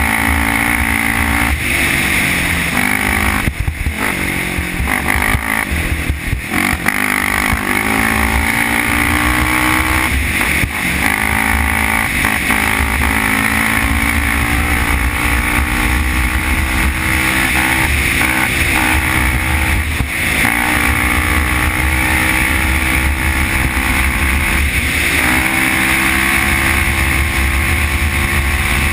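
Honda TRX450R quad's single-cylinder four-stroke engine running hard at speed, heard on board. Its pitch dips several times as the throttle is eased, then climbs again as it reopens.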